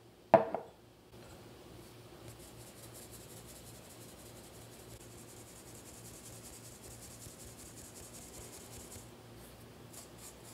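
A silicone spatula rubs flour and ground almonds through a fine wire-mesh strainer, a steady gritty scraping that stops about nine seconds in. It is preceded by one sharp knock about half a second in, and a few light ticks follow near the end.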